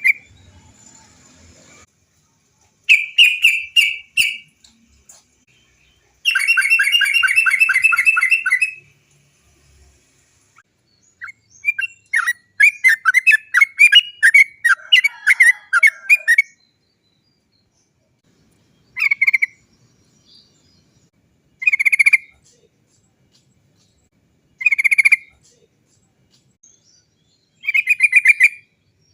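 Trucukan (yellow-vented bulbul) singing loudly in its rolling 'cok cok cok' chatter. It gives a long fast trill, then a run of chattering notes, then short separate phrases about every three seconds.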